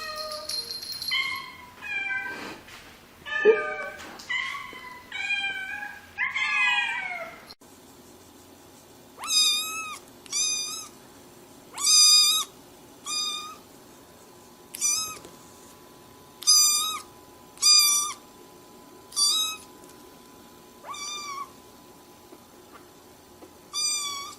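Cat meowing over and over: first a run of longer meows that slide in pitch, then, after a sudden change about seven seconds in, a string of short, high mews about one a second.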